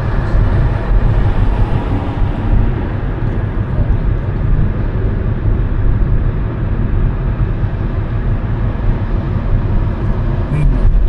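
Steady low rumble of a car driving, road and engine noise heard from inside the cabin, with no distinct events.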